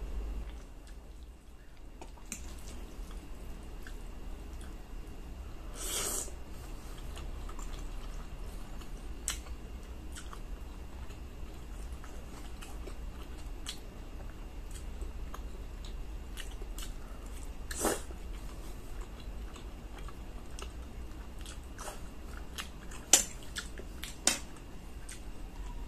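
Close-up eating sounds: chewing mouthfuls of spaghetti, over a low steady hum. Scattered short clicks run through it, likely the metal fork against the plate, with two sharp loud ones near the end.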